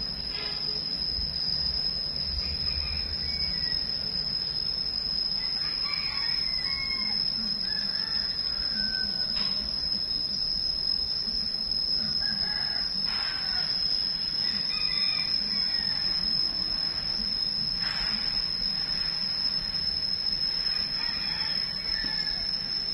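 Birds calling several times, in short pitched phrases, over a steady high-pitched whine.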